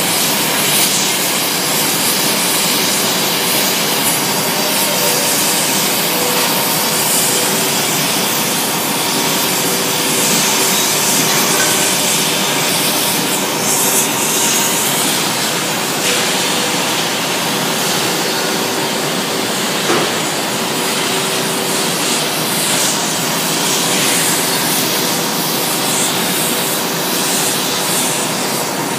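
Steady roar of glassworks gas burners and furnaces, an even rushing noise with faint steady hums under it.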